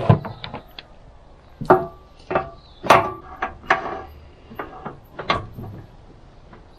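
Heavy steel roller drive chain clanking against the steel tandem chain case of a grader as it is fed in by hand: a string of separate sharp metal knocks and rattles at irregular intervals.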